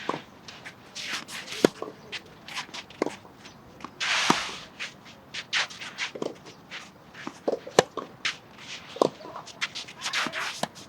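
Tennis players moving on court: shoe scuffs, shuffling footsteps and scrapes, with scattered sharp hits. The longest scrape comes about four seconds in.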